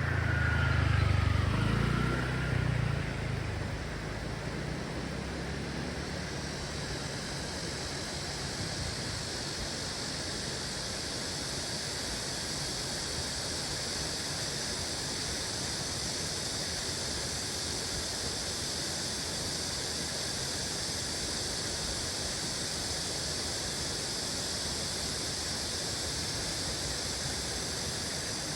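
Stream water running steadily, an even rushing hiss. A low rumble comes in the first few seconds.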